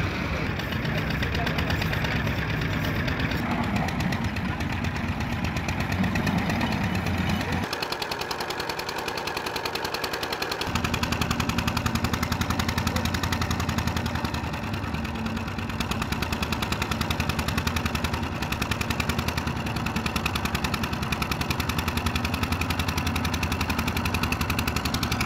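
Diesel engine running with a loud, rapid rattling knock. Its deep part drops away for about three seconds some eight seconds in, then returns.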